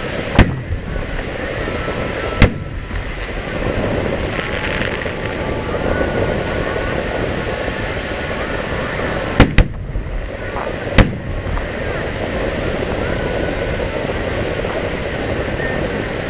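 Fireworks shells bursting with sharp bangs: one about half a second in, another two seconds later, then a quick pair near ten seconds and one more a second after.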